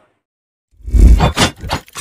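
Sound effects of an animated logo intro: deep rumbling booms with sharp metallic hits, starting abruptly after a short silence about three-quarters of a second in.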